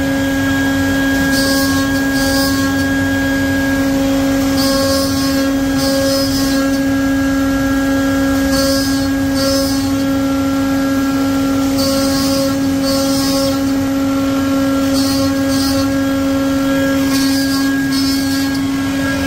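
CNC wood-carving router running, its spindle giving a steady high whine, with short bursts of hiss every second or two as the bit cuts into the wooden block.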